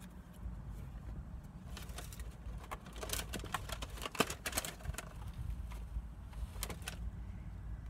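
Takeout food packaging being handled and opened: quick crackling and clicking of plastic and paper, densest about three to five seconds in, over a steady low hum.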